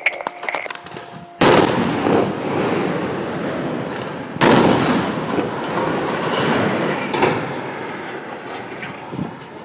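Explosive demolition charges going off to fell a limestone storage bin: a few small cracks, then two loud blasts about three seconds apart. Each is followed by a long rumble of the structure collapsing that slowly dies away.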